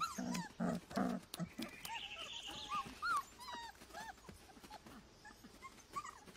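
Wolf pups begging for food from their mother: a quick run of short low smacking sounds at the start, then many short, high-pitched whimpers and squeaks that rise and fall.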